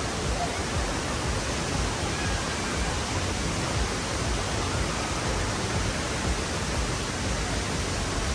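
Steady rushing of flowing water, an even noise with no breaks or changes.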